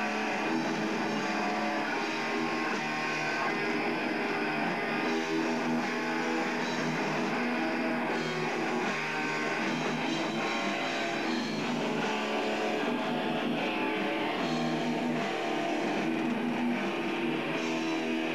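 Guitar-driven rock music, playing steadily at an even level.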